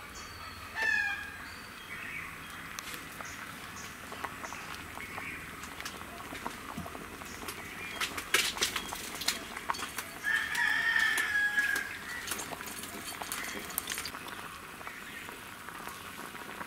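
Chickens calling: a short call about a second in and a longer held call, like a crow, of about a second and a half around ten seconds in. A few sharp clicks sound around eight to nine seconds in.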